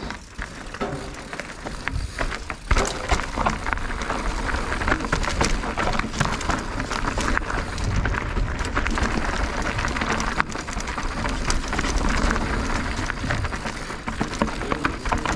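Mountain bike being ridden over a rough trail: tyre noise on dirt and rock, with constant rattling clicks and knocks from the bike.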